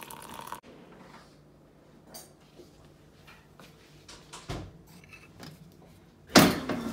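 Small kitchen handling sounds: scattered light clinks and knocks of a ceramic coffee mug and sugar bowl on a granite counter, with a dull thump about four and a half seconds in and a sudden louder knock near the end.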